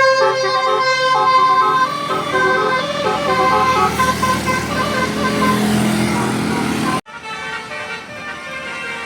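Bus telolet Basuri musical horn playing a tune of quick stepped notes over the bus's engine, which grows louder around the middle. The sound cuts off suddenly about seven seconds in, and a quieter horn tune follows.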